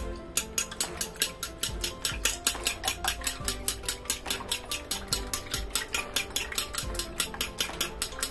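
A fork beats two eggs in a ceramic bowl, its tines clicking against the bowl in a fast, steady rhythm of about five or six strokes a second.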